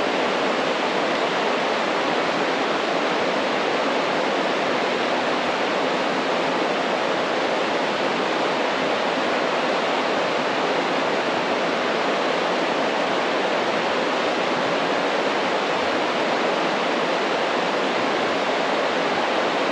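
Steady rushing of water pouring over a small waterfall, an even unbroken roar.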